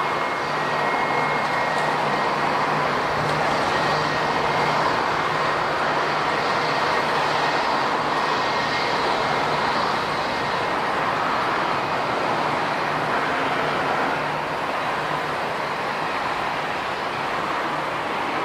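Jet airliner engines running, a steady rush of noise with a faint high whine, swelling slightly and then easing a little near the end.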